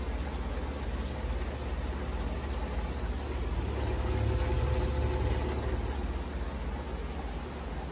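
Reef aquarium overflow water pouring and bubbling into the sump, a steady watery rush with a low hum underneath, a little louder about halfway through.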